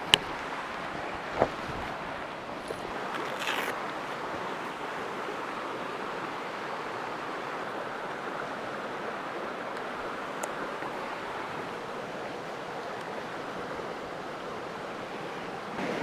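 Fast, shallow stream rushing over rocks: a steady, even water hiss. A couple of sharp knocks from camera gear being handled sound in the first second and a half, and there is a brief rustle about three and a half seconds in.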